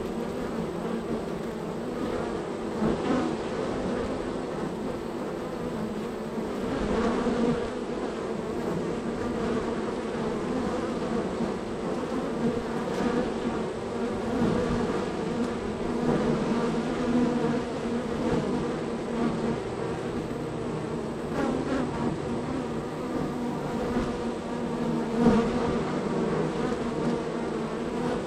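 Honey bees buzzing at a busy hive entrance: a steady, dense hum of many wings, with louder passes as single bees fly close by.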